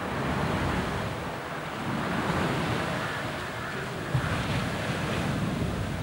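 Sea surf with wind buffeting the microphone: a steady rush of noise that swells and eases every couple of seconds, with a brief low bump about four seconds in.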